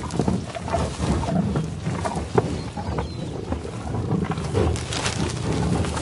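Herd of American bison grunting as they walk through grass: low, irregular grunts.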